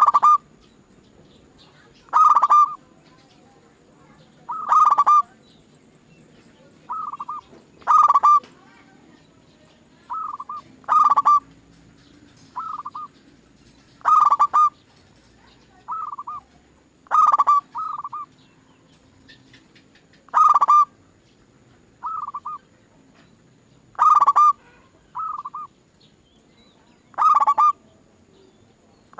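Zebra doves (perkutut) cooing: short phrases of a few quick, rolling coos repeated about every one to three seconds, some loud and some softer.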